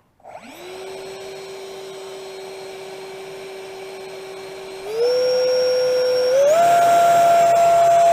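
Electric ducted fan motor of a foam-board RC jet spooling up with a rising whine. It holds a steady pitch, then steps up twice to a higher, louder whine about five and six and a half seconds in as the throttle is advanced.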